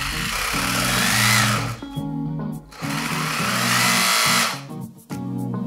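The RC car's two brushless motors and gearbox whir as the wheels spin freely in the air, throttled up in two bursts of about two seconds each. Background music plays throughout.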